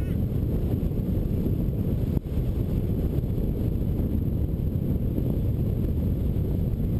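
Airflow buffeting the microphone of a camera mounted on a hang glider's wing in flight: a steady low rumble of wind noise, with one brief click about two seconds in.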